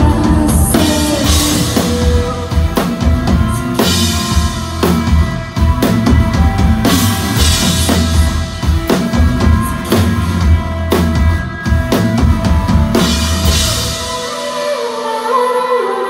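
Live rock band playing loud: drum kit played hard with bass guitar and electric guitar. About fourteen seconds in, the drums and bass drop out and the electric guitar rings on alone.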